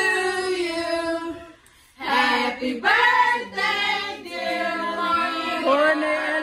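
A group of voices, adults and children together, singing a birthday song in held notes, with a short break about two seconds in.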